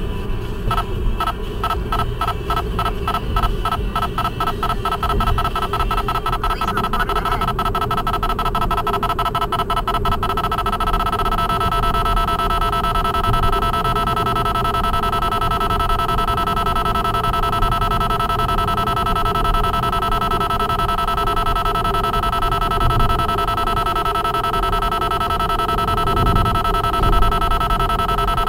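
Escort Redline radar detector alerting to police radar: pitched beeps that come faster and faster for about ten seconds as the signal grows stronger, then run together into a steady tone, over the car's road noise.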